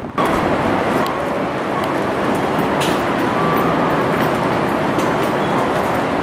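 City street ambience: steady traffic noise with people talking nearby.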